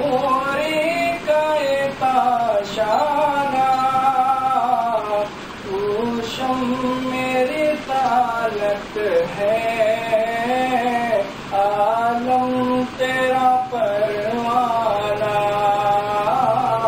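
A man singing a naat, an Urdu devotional poem in praise of the Prophet, solo and unaccompanied into a microphone, in long held phrases with ornamented bends in pitch.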